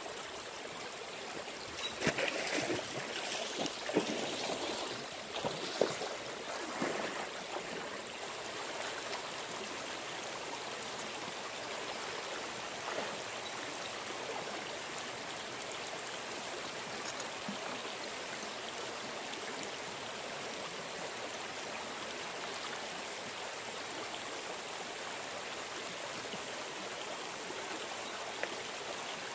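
River water flowing steadily over rocks, with a run of splashes and sloshing in the first several seconds as a person wades through the water.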